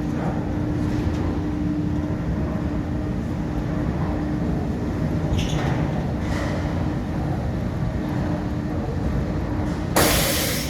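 Steady low mechanical rumble with a constant hum, like heavy machinery or a vehicle running. A loud, short burst of hiss comes near the end.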